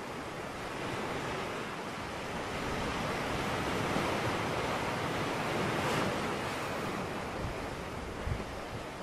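A steady rushing noise that swells gently towards the middle and eases off again.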